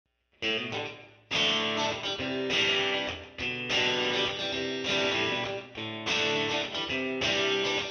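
Background music: a guitar strumming chords in a steady rhythm, starting about half a second in.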